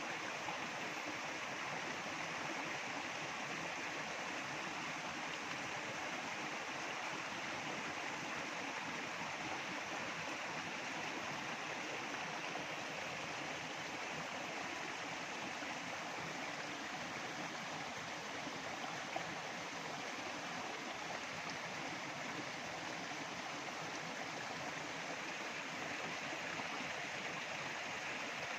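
Water running in a stream, a steady, unbroken rushing, with one small click about two-thirds of the way through.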